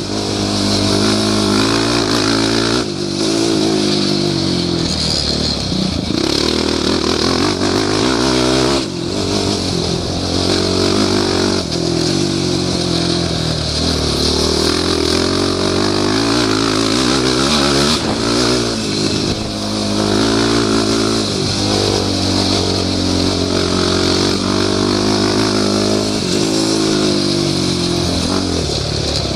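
Yamaha YFZ450 quad's single-cylinder four-stroke engine revving hard under way. Its pitch climbs again and again as it pulls through the gears, broken by several brief drops where the throttle is chopped.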